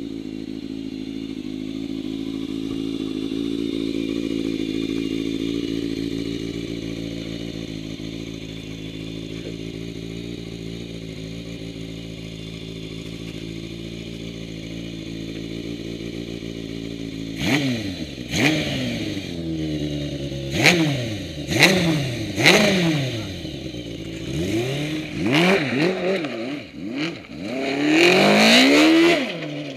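Go-kart's 1000cc four-cylinder motorcycle engine idling steadily. From about 17 seconds in it revs hard again and again, pitch climbing and dropping in quick sweeps as the kart is driven, loudest near the end.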